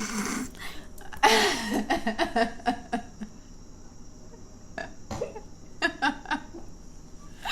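A short stuttering vocal sound from a person about a second in, a run of quick croaky pulses, followed by a few sharp wet mouth clicks of eating fruit close to the microphone.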